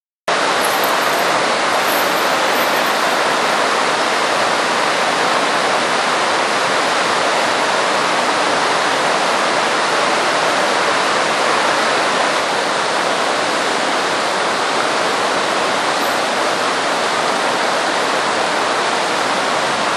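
River water rushing over shallow rapids: a steady, loud rush that cuts in abruptly at the start.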